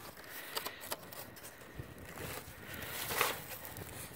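Sheets of cardboard being handled: irregular scraping and rustling with small taps, and a louder rustle about three seconds in.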